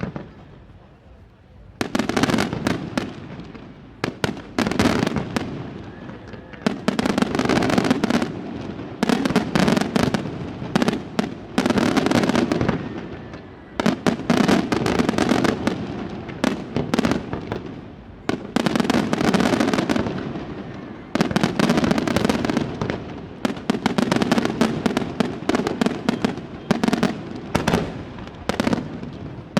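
Aerial fireworks display: after a quieter first two seconds, rapid volleys of loud shell bursts and crackling bangs come in waves every two to three seconds.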